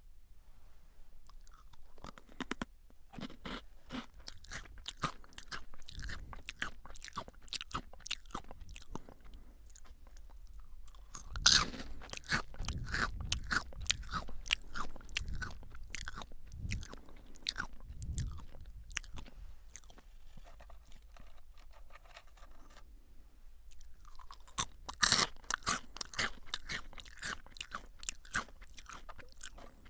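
Crunchy potato sticks (Calbee Jagabee, lightly salted) being bitten and chewed close to the microphone: dense, crisp crackling crunches, with louder bursts of crunching about 11 seconds in and again about 25 seconds in.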